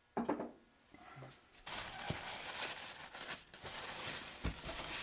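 Packing paper being crumpled and pulled off an old hand plane, a loud crackling rustle that starts about two seconds in, with a short knock at the start and a dull thump near the end.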